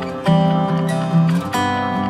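Background music: acoustic guitar strumming, with new chords struck about every half second.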